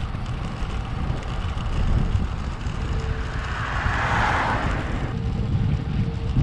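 Wind buffeting the microphone of a bike-mounted camera while riding on a road. About four seconds in, a passing van's road noise swells and fades.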